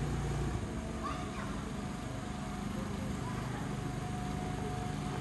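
Engine of a small passenger motorboat running steadily as it approaches along the canal: a low, even drone. Faint voices sound in the background.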